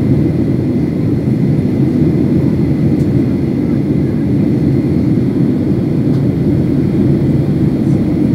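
Steady, loud drone inside the cabin of a passenger airplane in flight: engine and airflow noise with a deep rumble, not changing.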